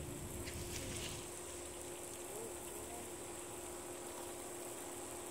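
Steady outdoor background hiss, with a low rumble of wind on the microphone that fades about a second in and a few faint clicks.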